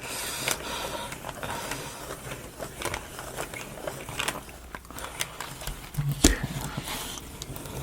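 Small plywood model parts of a wooden marble run being handled and fitted: scattered light clicks and scrapes, with a dull knock about six seconds in.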